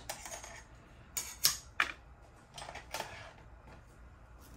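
Clicks and taps of a clear plastic diamond-painting tray being handled and set down, with small resin drills skittering inside it. About half a dozen sharp clicks, the loudest about one and a half seconds in.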